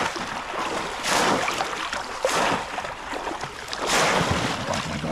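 Shallow floodwater in a rice paddy splashing as a person lunges through it, arms sweeping and slapping the surface. There are about four heavy splashes: one at the start, one just after a second in, one around two seconds in and one around four seconds in, with sloshing between them.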